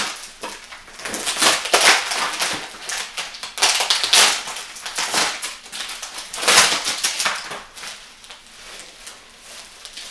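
Plastic packing wrap and bubble wrap crinkling and tearing as it is cut open with a knife and pulled off by hand, in irregular crackling bursts that grow quieter in the last couple of seconds.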